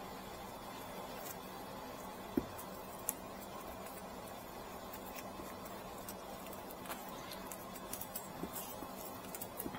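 Faint rustling and small ticks of straw rope being handled while making a waraji sandal, with two sharper clicks a few seconds in, over a steady low hum.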